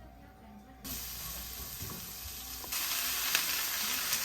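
A steady sizzling hiss that starts about a second in and gets louder near three seconds in.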